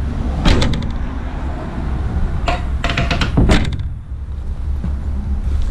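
Ford Transit panel van doors being handled and shut: clunks and latch clicks about half a second in and again around three seconds in, over a low rumble of wind on the microphone.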